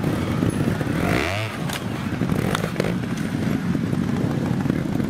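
Trials motorcycle engine running and blipping under load as the bike climbs over a rock, with a quick rise and fall in revs about a second in. A couple of sharp knocks are heard shortly after.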